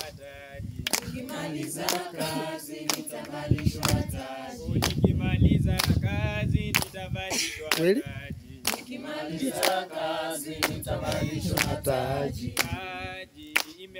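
A small group singing a hymn unaccompanied, with hand claps about once a second. About halfway through, a low rumble joins in for a couple of seconds.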